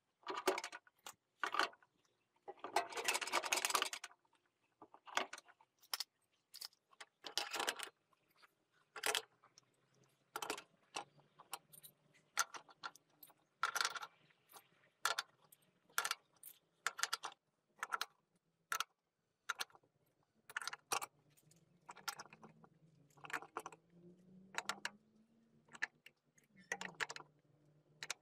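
Metal hand tools (pliers, chisels and screwdrivers) clinking and rattling against a painted metal tool rack and wooden panels as they are slotted in one by one: a long string of short clinks, with a longer rattle about three seconds in.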